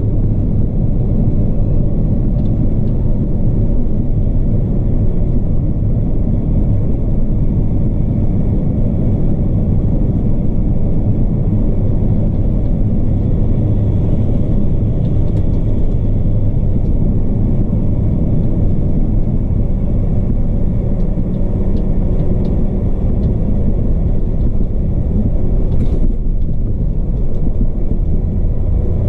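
Log truck's diesel engine and drivetrain rumbling steadily, heard from inside the cab while it drives along a dirt road. A single short click sounds near the end.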